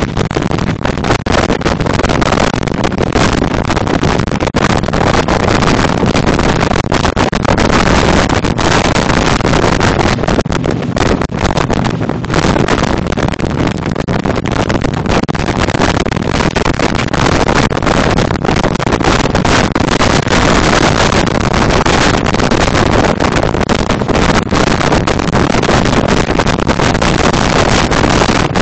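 Loud, gusting wind buffeting a phone microphone aboard a RIB running at speed, with the boat's engine under it.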